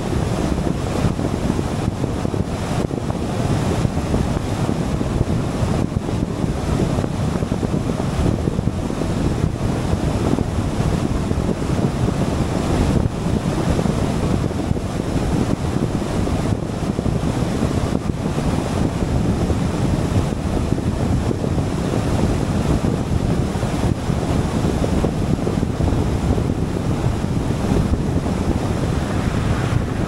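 Steady wind rush over the microphone mixed with the low road and tyre noise of a car driving at speed.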